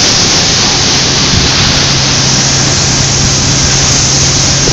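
Steady loud machinery noise from the steamboat Natchez's engine room, an even rushing noise with a low steady hum that comes in about a second in.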